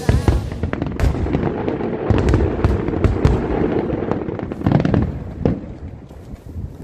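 Fireworks display going off: a rapid string of sharp bangs and crackles over a low rumble, with a louder cluster of bursts about five seconds in, then thinning out.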